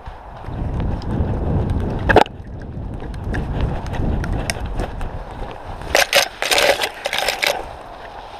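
Footsteps running over a forest floor, twigs snapping and crunching underfoot, with a sharp snap about two seconds in and a low rumble of movement and wind on the camera microphone. About six seconds in comes a cluster of loud crackling and rustling as branches brush past.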